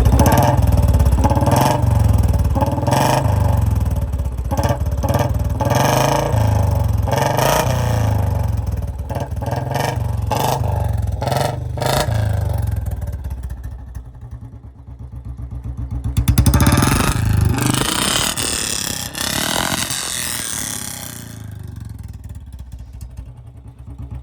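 Royal Enfield Bullet single-cylinder engine running through an aftermarket shot-bottle silencer with a C-bend, its exhaust beating steadily. The revs rise and fall: the sound dips about midway, swells again a couple of seconds later, and drops back near the end.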